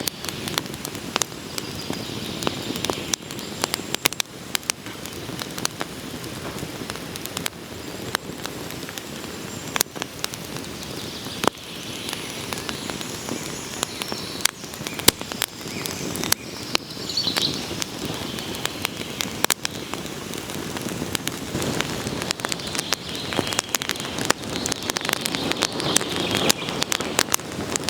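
Wood fire crackling, with a steady hiss and many irregular sharp pops and snaps.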